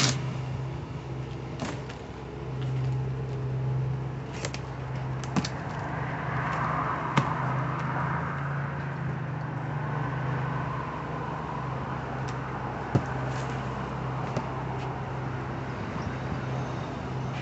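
Cardboard shipping box being opened by hand: flaps and tape rustling and tearing, with a few sharp snaps and clicks, over a steady low hum.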